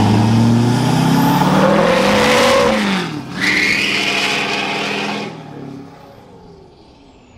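Lifted Chevrolet Silverado pickup doing a burnout: the engine revs hard, its pitch climbing and then dropping, and about three and a half seconds in the tyres squeal in a high screech for about two seconds. Then the engine sound fades as the truck pulls away.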